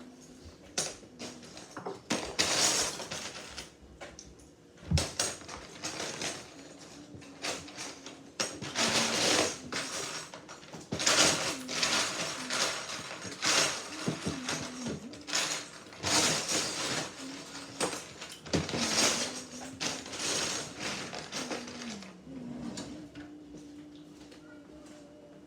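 Plastic Lego bricks clattering and rattling as hands rummage through a pile of pieces and snap them together, in irregular bursts.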